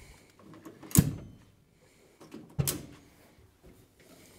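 Two sharp knocks with a few lighter clicks as meatball skewers are handled on a gas grill's grate and set onto a platter, the louder knock about a second in and another a little past the middle.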